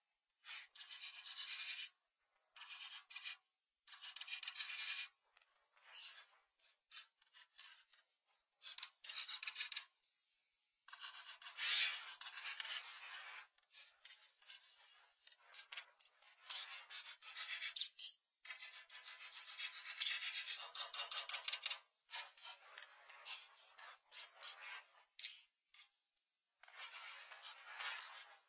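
Oil pastel scratching across paper in quick strokes, coming in bursts of one to a few seconds with short pauses between.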